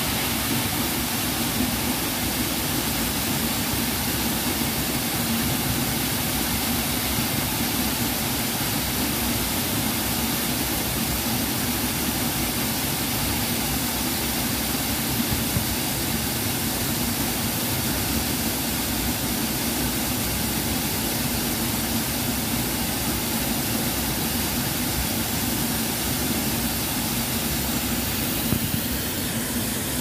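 Waterfall plunging into a pool: a steady rush of falling water.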